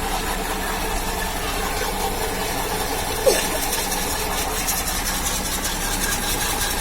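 Suzuki Alto engine idling steadily with the clutch pedal held down, its noise carrying the sound from the gearbox that the mechanic identifies as a worn clutch release bearing. A brief sharp sound about three seconds in.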